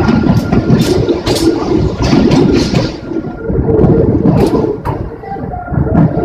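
A Hakone Tozan Railway electric train running past on its way out of the station: a steady rumble with repeated sharp clicks from the wheels. The last car passes about four seconds in and the noise thins, though the rumble goes on.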